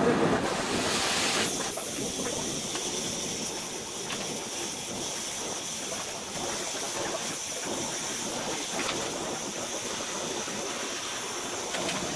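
Gas welding torch flame hissing steadily while heating a steel rod; the hiss is loudest in the first second or so.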